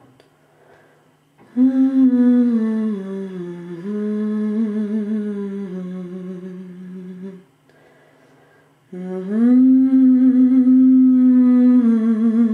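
A woman humming a slow, wordless melody in long held notes that step up and down. It comes in two phrases, with a pause of about a second and a half between them.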